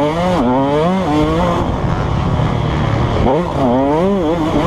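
KTM 150 SX two-stroke dirt bike engine revving hard and backing off in turn as it is ridden around a motocross track: the pitch climbs sharply at the start, falls away after about a second and a half, and climbs again a little past halfway.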